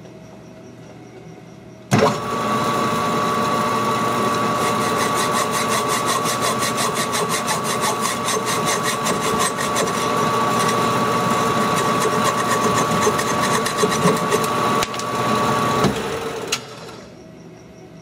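Metal lathe starts about two seconds in and runs with a steady whine while a hacksaw blade held against the spinning hobbed gear saws it off, giving a fast, even rasping rhythm. The lathe stops near the end.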